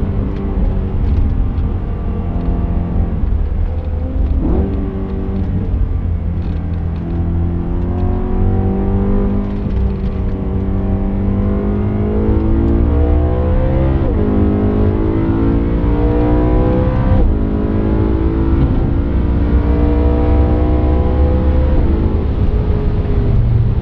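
BMW M3 E92's 4.0-litre V8 at full throttle on track, heard from inside the cabin. Its pitch climbs through the revs and drops sharply at each gear change, about four times, over heavy road and wind rumble.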